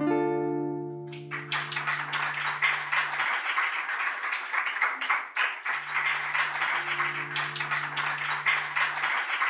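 Steel-string acoustic guitar's last chord ringing out, then audience applause from about a second in, with a low note sounding faintly beneath it for a few seconds.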